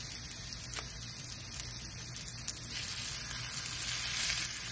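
Chicken breasts searing in hot olive oil in a cast-iron skillet over medium-high heat: a steady sizzle with a few small crackles of spattering oil.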